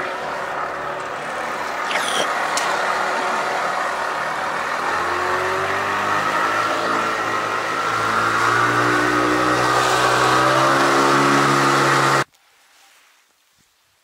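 Small boat's outboard motor running under way with water and wind hiss, its pitch rising from about five seconds in as it speeds up. The sound cuts off abruptly a little before the end.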